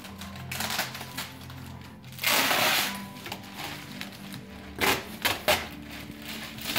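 Plastic wrap and cardboard packing rustling and crinkling as a large framed picture is handled out of its box. A louder rustle lasts about half a second, some two seconds in, and a couple of sharper crackles follow near the end.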